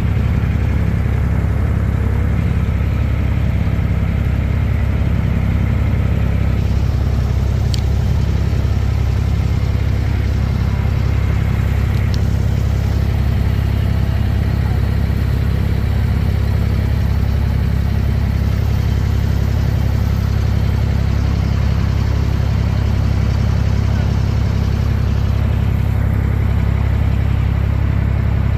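A vehicle's engine running with a steady low drone, without speeding up or slowing down.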